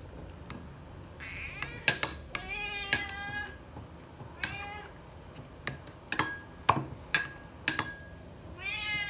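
Domestic cats meowing insistently for food, several falling meows with the longest about three seconds in. Several short, sharp clicks come in between.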